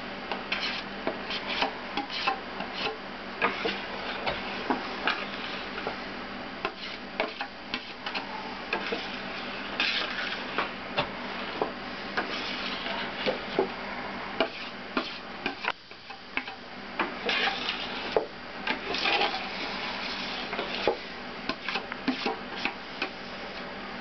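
A spatula scraping and stirring melted chocolate in a bowl, with frequent irregular clicks and taps of the utensil against the bowl, over a steady background hiss.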